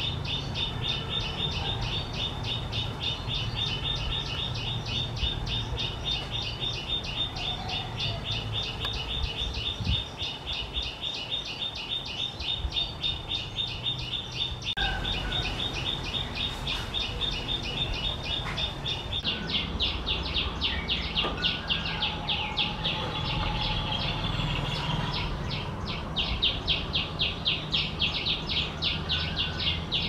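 Common tailorbird calling: a fast, even run of sharp, high notes, about five a second, without a break. About two-thirds of the way through, the notes change character and come in louder swells.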